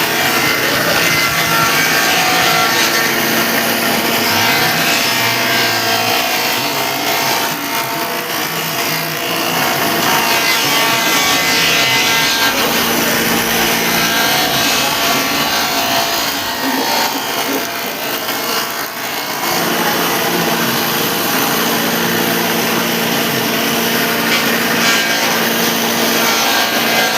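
Large electric wood planer running and planing wood: a steady motor tone under the noisy cutting of the blades.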